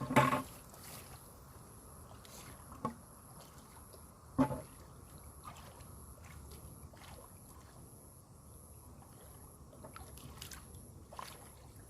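Water sloshing and splashing in a river, with a few short sharp knocks or splashes: the loudest right at the start and about four and a half seconds in.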